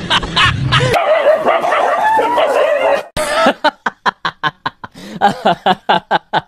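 Dog yelping and whining, then a run of short, evenly spaced cries at about five a second that cuts in suddenly about three seconds in.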